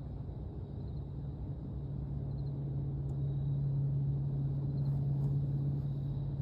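Brand-new DLE 35RA single-cylinder two-stroke gas engine on an RC plane running at a steady speed on its first start, growing a little louder partway through.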